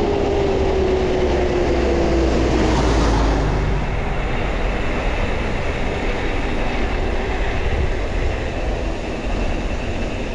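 Steady rumbling wind and road noise from moving along the road during a bike ride. A humming tone, like a passing engine, slides slowly down in pitch and fades over the first three seconds.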